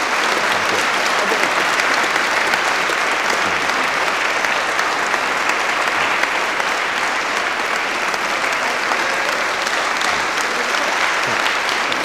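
Large audience applauding: a steady, sustained round of clapping that holds at an even level throughout.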